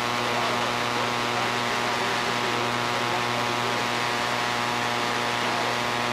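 Steady electrical hum with a constant hiss over it, the background noise of an old analog videotape recording's audio track.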